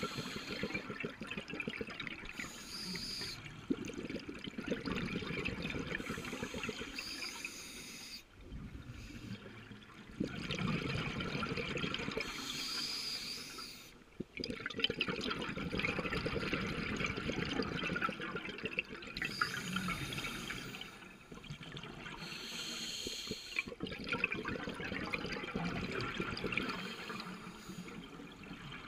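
Scuba diver breathing through a regulator underwater: a short hiss on each inhale, then a longer rush of gurgling exhaust bubbles on each exhale, repeating every few seconds.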